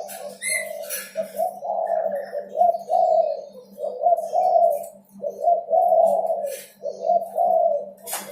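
Derkuku (spotted dove) cooing in a rapid string of low, rolling phrases, one after another with short breaks, over a steady low hum. A single sharp click comes near the end.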